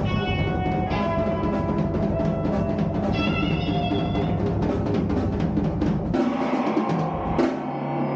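A live rock band plays: drum kit and electric guitars together. About six seconds in the full band drops away, leaving sustained guitar tones with one more hit.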